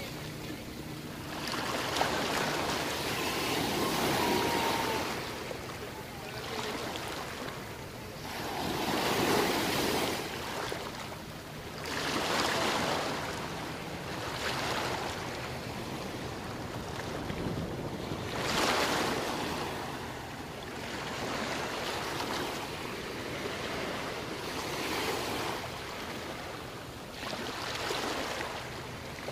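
Small sea waves breaking and washing up a sandy beach, the wash swelling and easing every few seconds.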